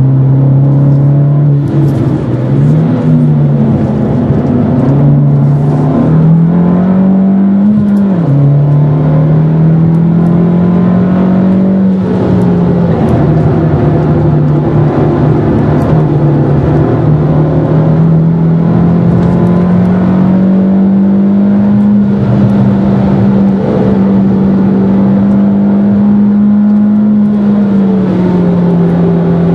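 Fiat Grande Punto Abarth's 1.4 T-Jet turbocharged four-cylinder engine under load on a track lap, heard from inside the cabin. The engine note climbs, drops sharply about eight seconds in, then rises slowly, holds, and dips again near the end.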